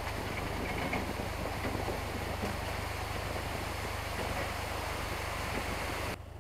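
Narrowboat's engine running steadily as the boat cruises, a constant low drone under the rush of wind on the microphone. It cuts off just before the end, giving way to music.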